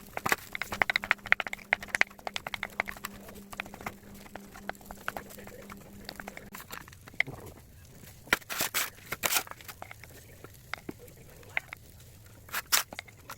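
Wood fire crackling with many sharp pops, dense for the first several seconds and then sparser, with a few louder clusters of pops later on.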